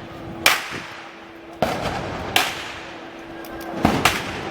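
Five sharp gunpowder bangs at uneven intervals, the last two in quick succession, each trailing off in a short echo, over a steady background of festival noise.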